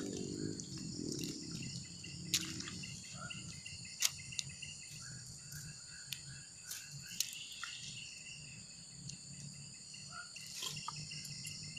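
Steady, high-pitched insect chorus, with a few sharp clicks and soft handling noises scattered through it as fishing tackle is baited by hand.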